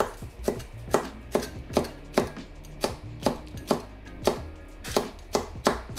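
Large kitchen knife slicing a red chilli into rings on a chopping board: an even run of sharp knocks of the blade on the board, about two to three a second.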